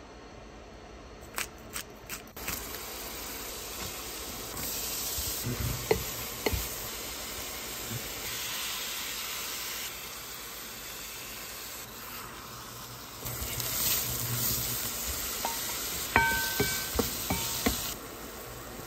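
Food sizzling in a hot pan while being stirred, with a few sharp utensil clicks and knocks. Near the end comes a short run of electronic beeps.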